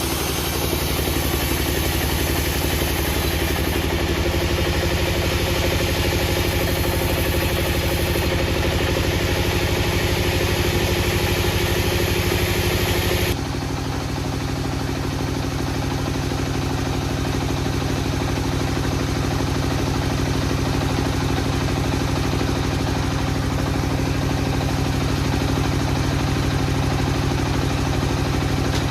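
An engine running steadily, its sound changing abruptly about halfway through.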